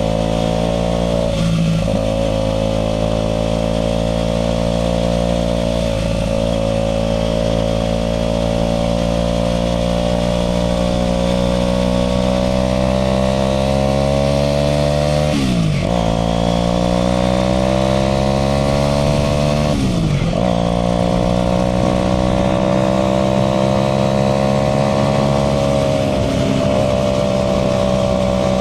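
Aprilia RS4 125's single-cylinder four-stroke engine running under way on the road. Its note rises slowly and drops sharply for a moment about five times, as at gear changes or throttle lifts.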